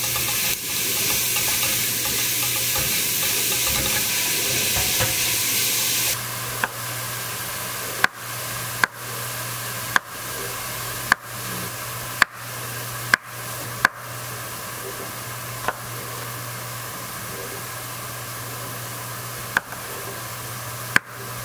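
Chopped bacon sizzling in a hot pot for about the first six seconds. After that comes a knife slicing potatoes on a wooden cutting board: sharp knocks of the blade on the board, roughly once a second, over a fainter sizzle.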